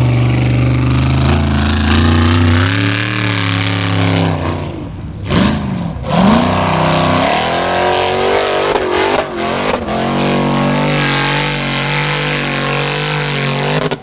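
Formula Offroad buggy's engine revving hard at full throttle while it climbs a steep dirt hill. The revs drop sharply and flare back up twice about five and six seconds in, then stutter up and down around nine to ten seconds before holding high again.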